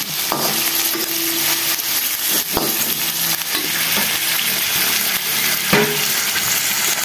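Sago grubs (palm weevil larvae) sizzling in hot oil in a wok while a metal spatula stirs them, with a few sharp scrapes and taps of the spatula on the pan.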